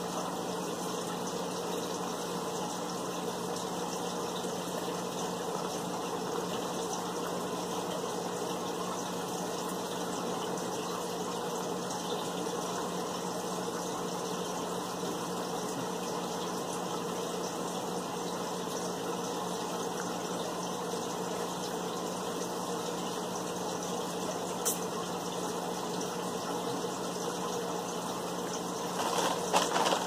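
Steady machine hum with a low tone under an even hiss, unchanging, with a single faint click about 25 seconds in.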